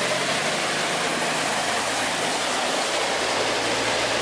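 A steady rushing hiss, even and unbroken, with a vehicle engine humming low beneath it.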